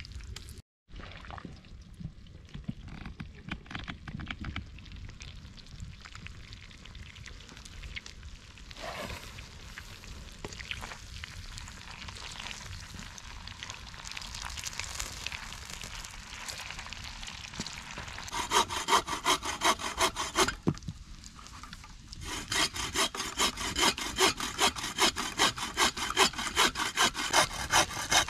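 Hand saw cutting wood in quick, even strokes, about two or three a second, starting about two-thirds of the way in, stopping briefly, then carrying on. Before that, fainter scattered crackling and rustling.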